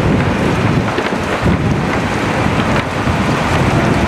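Wind buffeting the microphone over the steady rumble of a moving tram.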